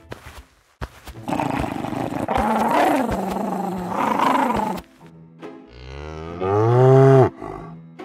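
A rough, drawn-out animal cry lasting about three and a half seconds, followed near the end by a cow mooing once, loud and long, its pitch rising and then falling away.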